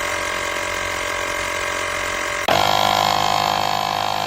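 Portable tire inflator's small electric air compressor running steadily. About two and a half seconds in it turns suddenly louder and its pitch changes, then runs on steadily.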